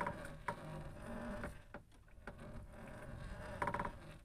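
Fishing longline being hauled in by hand over the wooden gunwale of a small boat: scattered knocks of line and gear against the hull, and a short rattling creak near the end, over a steady faint buzzing hum.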